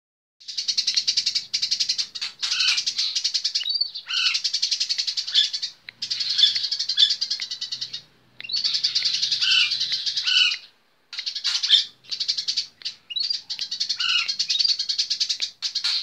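Eurasian tree sparrow giving its rapid chattering 'cerecet' call: long runs of very fast repeated notes, each lasting a second or two, with short breaks between.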